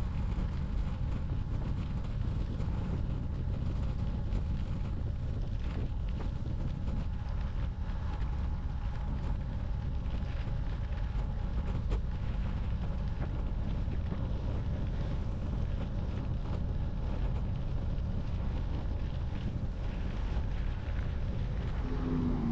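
Steady rumble of wind buffeting the microphone of a camera carried on a bicycle during a road ride.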